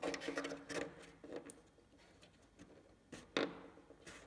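Light clicks and knocks as a composite frame piece is pressed and worked into a slot in a model aircraft's fuselage to test its fit. The knocks come irregularly, a cluster in the first second and a half and a couple more after about three seconds, some with a short ring.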